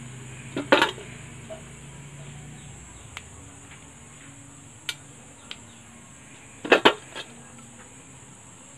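Freshly picked kamias fruits dropped into a stainless steel bowl, clattering against the metal in two short bursts, about a second in and again near seven seconds, with a few light single knocks between.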